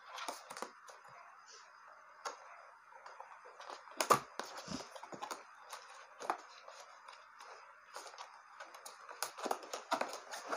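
Cardboard box of a laptop cooling pad being handled and opened: scattered light taps and clicks with faint rustling, the loudest knock about four seconds in.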